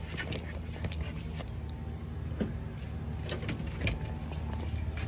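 Car engine running with a steady low hum, with scattered light clicks and knocks over it.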